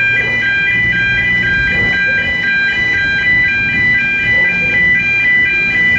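Road level-crossing warning alarm sounding continuously, a rapid alternating electronic two-tone warble, as a narrow-gauge steam locomotive crosses the road. Beneath it, a low rumble from the slowly moving locomotive and train.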